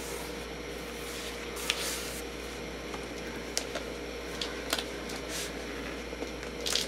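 A large hardcover book being lifted from its box and opened: soft rustles of paper and cover, with a few light taps and clicks scattered through, over a steady low hum.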